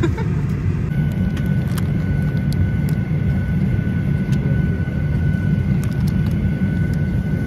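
Jet airliner cabin noise: a steady low rumble with a faint, steady high whine that comes in about a second in, and a few light clicks.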